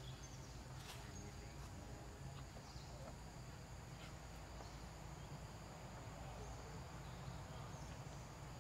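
Faint outdoor ambience: a steady, thin, high insect drone over a low rumble, with a couple of soft ticks.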